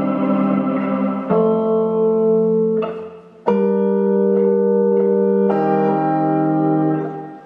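Recorded music for the dance: sustained chords held for about two seconds each and then changing, dropping away briefly about three seconds in and fading out near the end.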